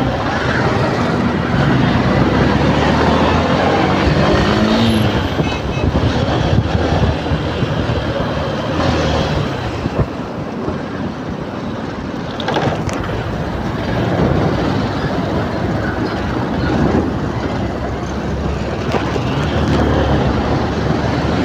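Road traffic heard from inside an open-sided auto-rickshaw: a steady mix of engine running, tyre and wind noise, with motorcycles, cars and trucks close by.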